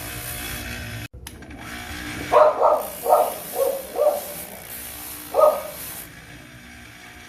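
A dog barking six times: five quick barks over about two seconds, then one more after a pause.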